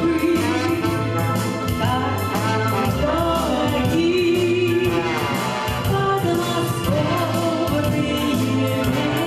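A woman singing a song into a microphone over instrumental accompaniment with a steady bass line.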